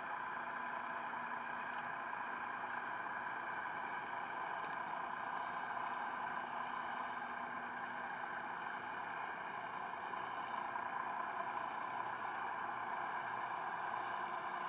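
Steady underwater hum and hiss picked up by a camera submerged with a cuttlefish jig rig, unchanging in level, with no distinct events.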